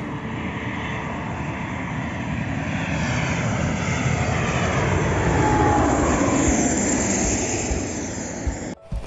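Twin-engine jet airliner flying low overhead, its engine roar swelling to a peak about halfway through and falling in pitch as it passes. The sound cuts off abruptly near the end.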